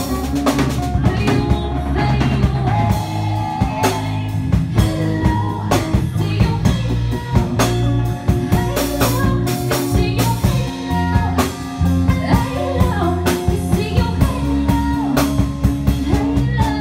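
Live band playing: a woman singing over electric guitars and a Ludwig drum kit with cymbals, keeping a steady beat.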